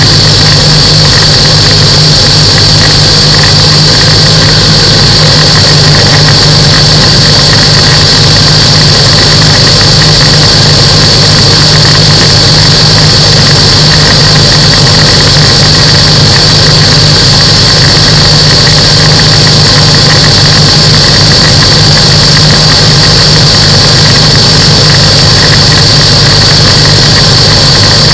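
Microlight aircraft engine and propeller running at a constant speed: a loud, even drone with a steady high whine above it.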